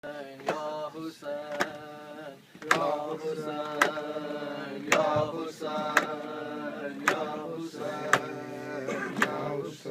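Men chanting a noha lament together, with sharp open-hand slaps on the chest (matam) about once a second keeping time.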